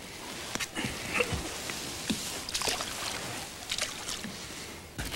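Water splashing and sloshing against the side of a boat as a largemouth bass is let back into the water, with irregular small splashes and drips.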